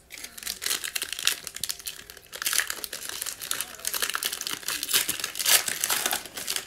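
Foil wrapper of a 2019-20 Illusions basketball card pack crinkling and crackling as it is handled and torn open by hand.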